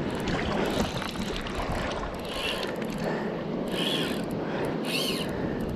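Fly reel's ratchet clicking steadily during the fight with a big brown trout that is pulling hard against the line.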